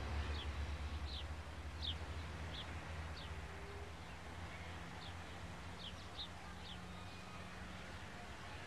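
Small birds chirping outdoors: scattered short, high chirps that fall in pitch, about a dozen over several seconds, over a low background rumble that fades away during the first few seconds.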